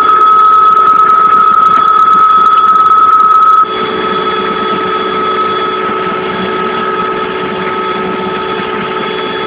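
Helicopter turbine engine running with a steady high whine over a loud rush. About four seconds in, the sound drops suddenly in level and the whine carries on.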